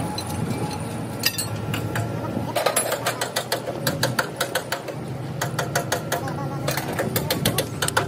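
Hand tools working on a tractor's rear wheel hub: three runs of rapid metallic clicks, about seven a second, each lasting a second or so, starting a couple of seconds in. A steady low hum runs underneath.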